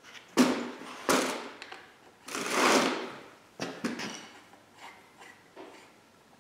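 Handling noise from fitting a handguard to a dirt bike's handlebar with a hand tool: a few knocks and rattles, a longer scraping rustle about two seconds in, then lighter clicks and taps.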